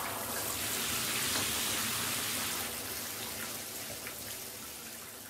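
Shower water spraying and splashing in a steady hiss, fading out gradually over the last couple of seconds.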